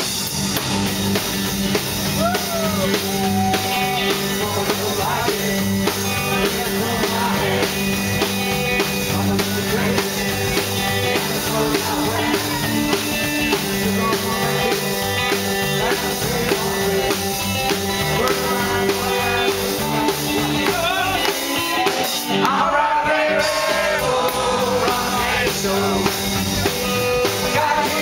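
Live rock and roll band playing, with drum kit and upright double bass, and voices singing along.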